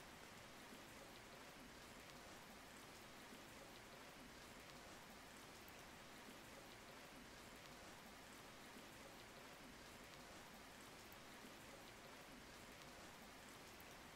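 Near silence: a faint, steady, even hiss of room tone.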